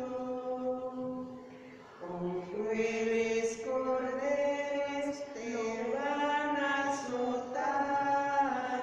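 Slow hymn sung in long held notes, one melodic line, for the Adoration of the Cross. The singing dips briefly about two seconds in, then carries on.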